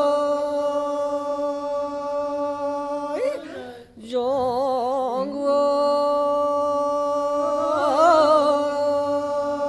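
A man singing a Jaunsari jangu folk song without accompaniment, holding long, wavering notes. The note breaks off about three seconds in, then a second long note follows, with a quick ornamented turn near the end.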